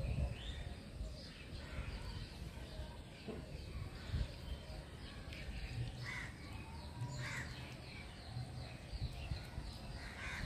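Birds chirping and calling in the background, with a few louder calls about six, seven and ten seconds in.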